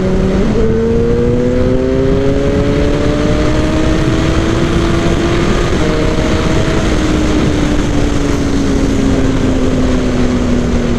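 Suzuki GSX-R 1000's inline-four engine pulling along the road under steady throttle. Its note climbs gently for about five seconds, then slowly falls away as the throttle eases, over a heavy rush of wind noise.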